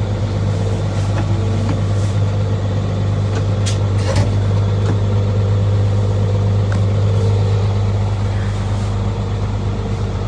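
Fendt Favorit 818 tractor's 6.9-litre six-cylinder MAN diesel running steadily, heard from inside the cab as the tractor turns slowly.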